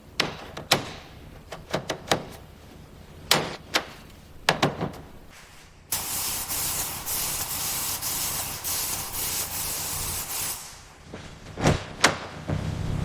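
Repair-work noises on a car: a run of sharp knocks and clanks, then a steady hiss for about four seconds, then two more knocks near the end.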